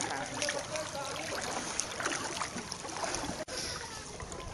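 Floodwater sloshing and splashing around people wading waist-deep through it, a steady watery churn with small splashes.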